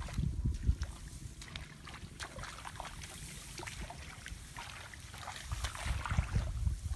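Gusty wind buffeting the microphone in low rumbles, strongest at the start and again near the end. Over it come scattered small rustles and splashes as people wade through grass and shallow muddy water.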